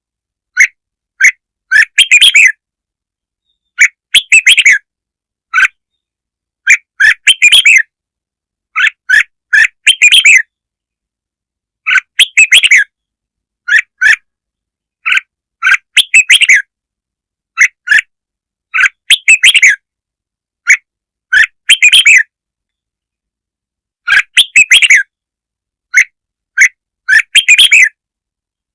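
Red-whiskered bulbul song: short, bright phrases of quick chirping notes, repeated every second or two with silent gaps between. This is a recorded lure call, played to draw in bulbuls.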